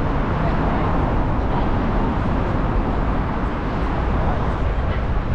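Steady city background noise dominated by a low traffic rumble, with no single event standing out.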